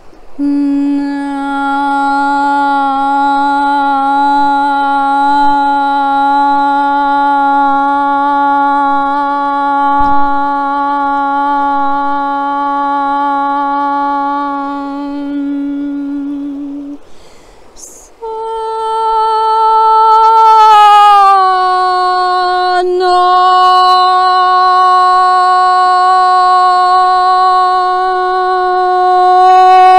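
A woman's voice toning long wordless notes: one note held steady for about sixteen seconds, then after a short break a higher note that slides down and is held again.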